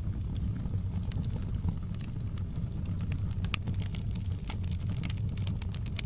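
Wood fire crackling: scattered sharp pops and snaps, thicker in the second half, over a steady low rumble of the flames.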